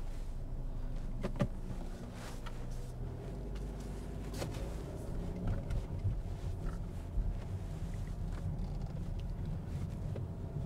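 Car interior while driving: a steady low rumble of engine and road noise, with a couple of sharp clicks.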